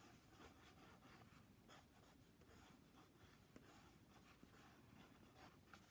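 Faint scratching of a red-lead mechanical pencil sketching on sketchbook paper, in short, irregular strokes.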